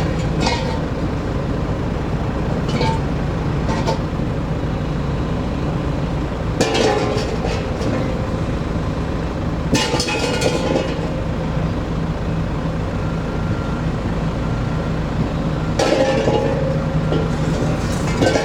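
An engine running steadily with a low drone. Louder, noisier sounds break in three times: about six seconds in, about ten seconds in, and for the last couple of seconds.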